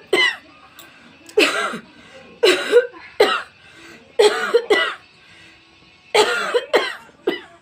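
A woman coughing loudly in repeated short bouts, about nine coughs in all. It is a deep, chesty cough as she tries to bring up phlegm stuck in her throat that will not come out.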